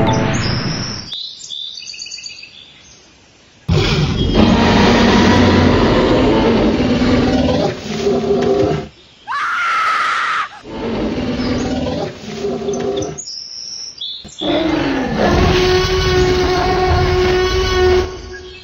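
A string of cut-together monster and dinosaur sound effects: loud roars and growls that start and stop abruptly, with a gliding screech about ten seconds in and a long held roar near the end.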